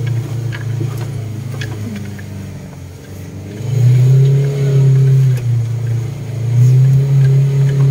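Car engine heard from inside the cabin while driving on a rough dirt track: a steady low engine note eases off about two seconds in, then the car pulls harder and the engine grows louder from about four seconds in and again near seven seconds, with a few light clicks and knocks along the way.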